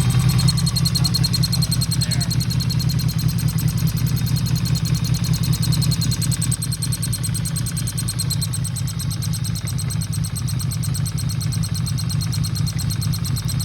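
Yamaha XS750 three-cylinder engine idling steadily with an even, rapid pulse. This is the strange noise that prompted the carburettor work, which the owner thought might be a vacuum leak.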